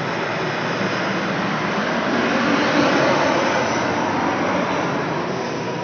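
Jet engine noise of a Boeing 737 on final approach passing low overhead: a broad roar that swells to its loudest about halfway through, then begins to fade as the aircraft moves away.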